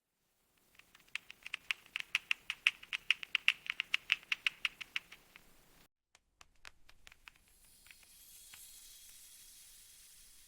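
Mechanical keyboard keys clicking in a fast, even run of about six presses a second, then a short pause and a few scattered key clicks. A faint steady hiss follows near the end.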